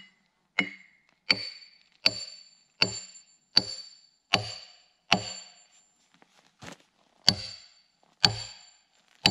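Sledgehammer driving a wedge into the end of a log to split it lengthwise. About ten heavy blows, roughly one every three-quarters of a second, each ringing briefly. A short pause and a lighter tap come about two-thirds of the way through.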